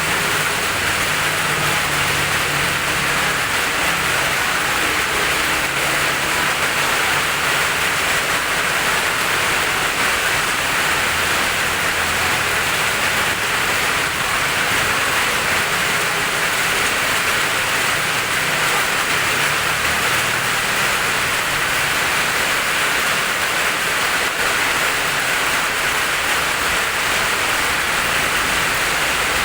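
Steady heavy rain falling: an even, unbroken hiss, with a faint low hum coming and going underneath.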